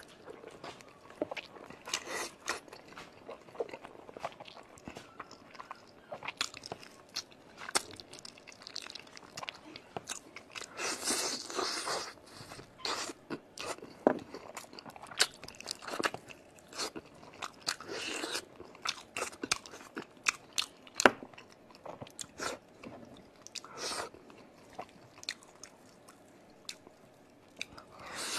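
A person eating braised pig's trotters close to a clip-on microphone: biting and chewing the skin and gristle, with many sharp mouth clicks and a few longer, louder stretches of chewing about 11 and 18 seconds in.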